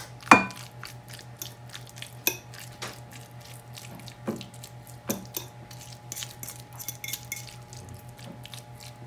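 Glass mixing bowl knocking and clinking against a glass baking dish as a creamy chicken mixture is scraped out of it by hand, in scattered light knocks, the loudest about a third of a second in. A faint steady hum runs underneath.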